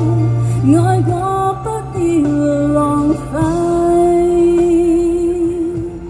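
A woman sings a slow ballad into a microphone, amplified through a small portable speaker over accompaniment music. In the second half she holds one long note with vibrato as the song comes to its end.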